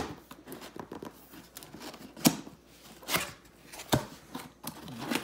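Cardboard box being opened by hand: the lid and flaps rub and rustle, with several sharp knocks and clicks of cardboard. The loudest comes about two seconds in.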